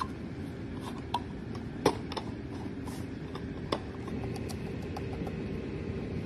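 Several short, sharp clicks and taps, the loudest about two seconds in, over a steady low hum.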